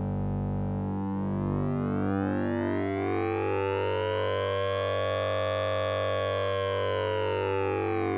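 Synthesized sync-and-ring tone from the Orange Vocoder plug-in: a steady low drone under a bright overtone sweep that rises slowly, peaks about five seconds in, and falls again, like a slow siren.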